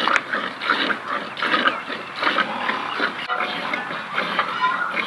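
An animal calling in a run of short, irregular sounds, several a second.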